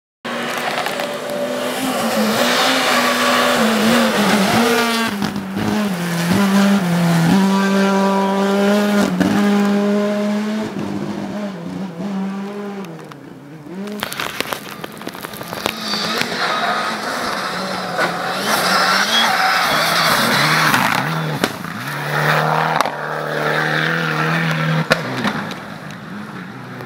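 Rally cars at full throttle on a snowy forest stage, engine pitch climbing and dropping with gear changes as they come past. There are two passes, the second beginning about halfway through.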